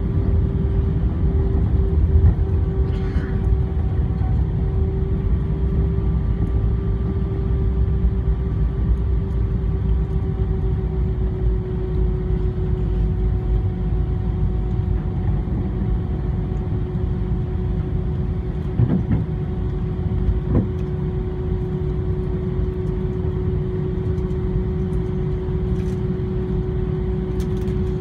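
Airbus A320 cabin noise heard from a window seat during the landing rollout: a heavy, steady rumble of the wheels on the runway under a steady engine hum that sags slightly in pitch as the jet slows. Two short knocks come close together about two-thirds of the way through.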